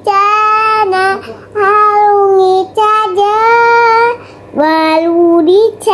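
A young girl singing on her own, with no instruments, in several drawn-out phrases with short breaths between them.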